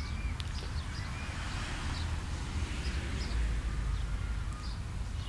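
Outdoor ambience: birds chirping now and then, short calls scattered through, over a steady low rumble.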